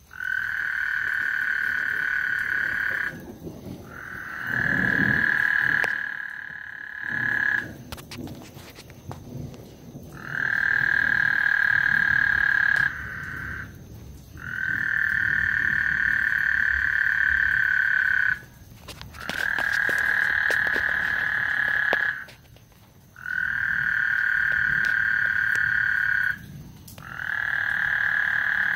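Frogs calling in long, steady trills, seven in a row, each lasting two to four seconds with short pauses between them.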